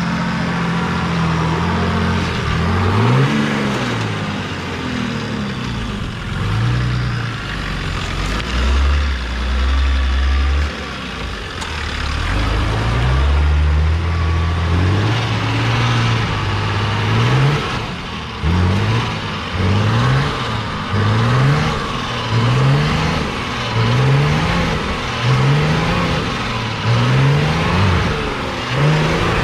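Nissan GQ Patrol's turbo TD42 diesel engine labouring up a rutted climb, held at steady revs in stretches, then revved in short rising bursts about once a second through the second half. The driver says the clutch is frying.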